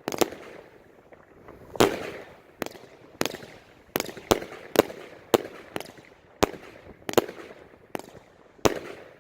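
A 49-shot firework cake (barrage) firing, a string of sharp reports about every half-second to second at an uneven pace, each with a short fading echo.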